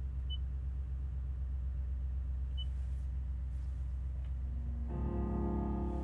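Toyota Tundra's 5.7-litre V8 idling steadily, heard from inside the cab, with two short beeps from the infotainment touchscreen as it is tapped. About five seconds in, music starts playing through the JBL stereo.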